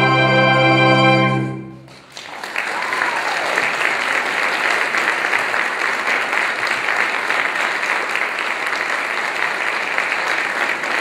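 A choir holds its final sustained chord, which is cut off just under two seconds in. After a short gap, a concert audience applauds steadily.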